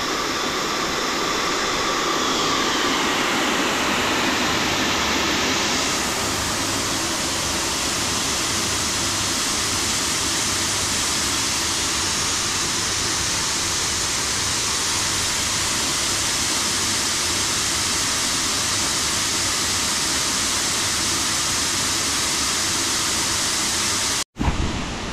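Dry grain streaming from a 12-ton Opico grain dryer's discharge chute onto a heap in the grain store while the dryer's elevator runs, making a loud, steady hiss. The sound cuts off abruptly near the end.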